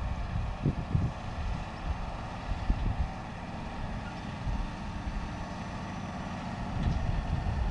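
John Deere 7530 tractor's six-cylinder diesel engine running as it pulls a loaded bale trailer downhill, growing louder near the end as it approaches. Wind rumbles on the microphone throughout.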